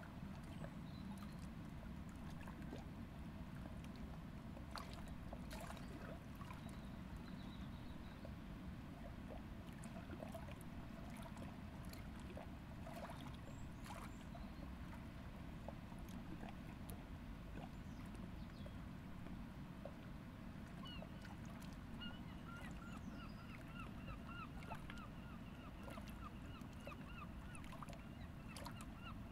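Riverside ambience: a steady low rush with scattered bird calls and a few faint clicks. About two-thirds of the way through, a bird starts a long run of quick, repeated chirping calls.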